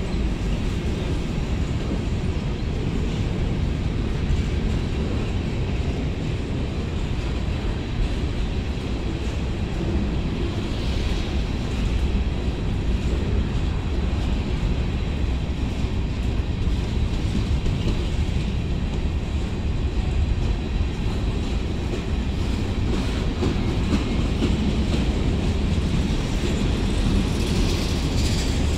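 Freight train of covered hopper cars rolling past, its steel wheels on the rails making a steady low rumble with clickety-clack.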